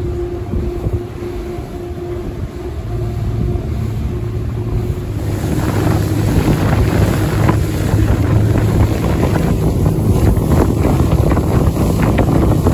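Rigid inflatable boat's engine running with a steady hum; about five seconds in the sound gets louder, with wind buffeting the microphone and water spray rushing off the hull as the boat runs at speed.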